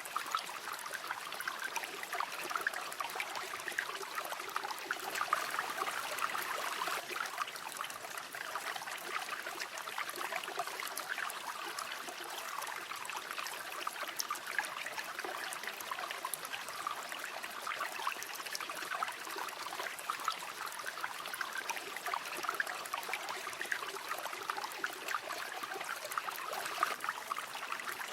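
Shallow river flowing steadily, with a continuous babbling and trickling of water over stones.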